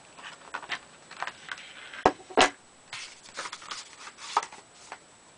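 Hands opening a plastic blister pack: scattered short crinkles and rustles of stiff plastic, with two sharp clacks a fraction of a second apart about two seconds in.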